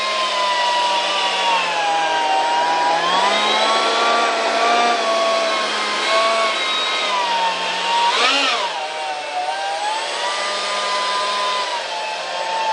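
Electric ducted fan running on a 70mm EDF unit, its whine wandering up and down in pitch as the throttle is eased back and forth, with a quick rise and fall about eight seconds in.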